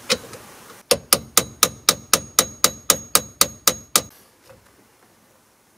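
Hammer tapping a tool into the steering wheel's stripped hex bolts: about a dozen sharp, even metallic blows, roughly four a second, stopping about four seconds in.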